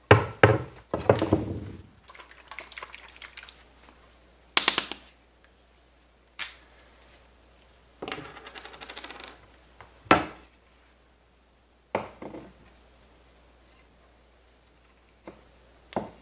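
Scattered knocks and clatters of a wooden shotgun stock and small items being handled and set down on a wooden workbench, the loudest in the first two seconds. About eight seconds in comes a second or so of rubbing.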